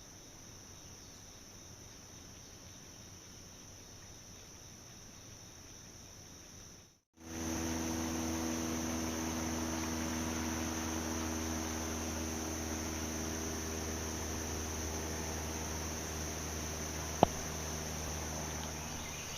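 Steady high-pitched drone of a summer insect chorus. About a third of the way in it jumps louder after a brief break, a steady low hum joins beneath it, and a single sharp click sounds near the end.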